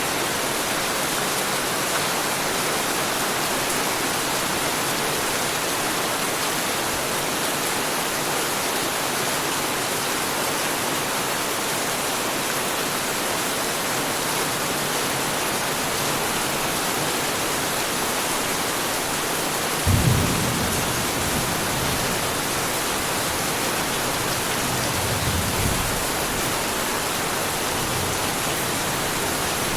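Heavy rain falling steadily in a dense hiss. About two-thirds of the way in, a sudden thunderclap rumbles low for a couple of seconds, and a fainter rumble of thunder follows a few seconds later.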